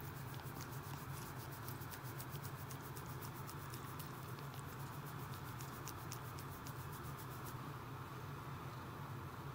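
Domestic cat purring steadily while its chin is scratched, with a fast run of small clicks over the purr that stops about three quarters of the way through.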